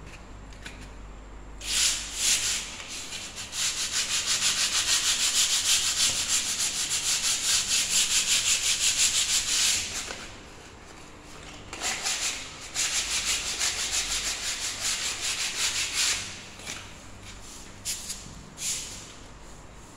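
Sandpaper rubbed by hand back and forth over a painted wall, a rhythmic scratchy hiss at about three strokes a second, sanding the surface down before repainting. The strokes pause about halfway through, start again, and thin out to a few scattered rubs near the end.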